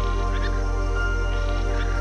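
Background music: a calm, sustained ambient track with a steady low drone and long held notes.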